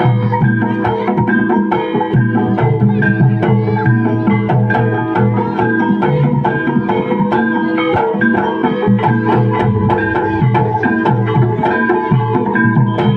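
Live gamelan music for an ebeg (kuda lumping) dance: ringing metallic melody notes played continuously in a steady, repeating rhythm over hand-drum patterns.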